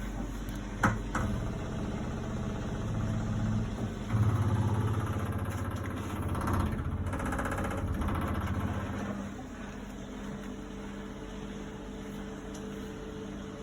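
Haier 10kg washing machine on its spin cycle, the drum spinning with a steady low hum. There are two sharp knocks about a second in, and the sound swells louder from about four seconds in, then drops back to a quieter steady spin after about nine seconds.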